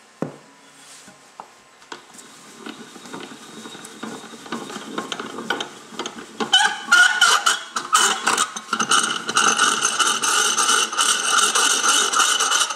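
Threaded rod of a snowmobile clutch spring compressor tool being spun by hand, a fast, continuous metallic clicking and rattling of the threads. It starts soft and gets much louder about six and a half seconds in.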